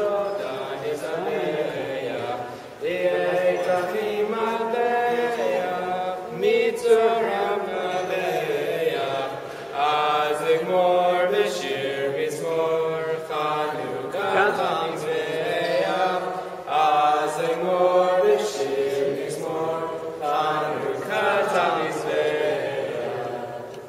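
A group of voices singing a Hebrew Hanukkah song together in unison, in short melodic phrases with brief breaks between them.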